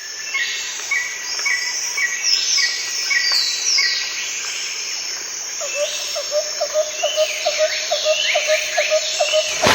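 Several birds singing at once in a mixed chorus of chirps, trills and sweeping whistled notes. From about six seconds in, a short low note repeats about three times a second beneath the song.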